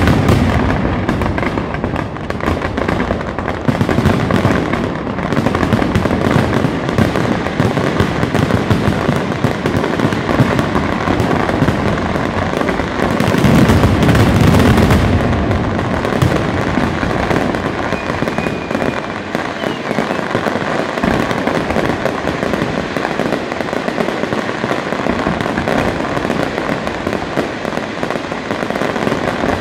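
Fireworks display: a dense, continuous barrage of shell bursts and crackle, with a louder surge about halfway through.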